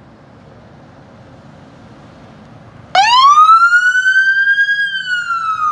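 A fire department pickup's siren switching on about three seconds in: one wail that climbs quickly in pitch, levels off, then starts to fall. Before it, only a low engine rumble.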